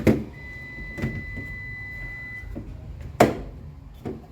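Hard plastic fridge parts knocking and clacking as a shelf or door bin is pushed into place: a few sharp knocks, the loudest about three seconds in. A steady high electronic tone sounds for about two seconds in the first half.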